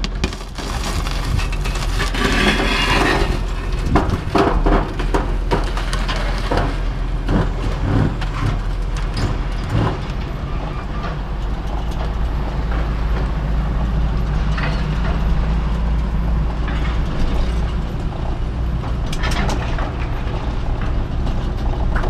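Heavy vehicle engine running steadily, with repeated irregular knocks and metallic clatter over it.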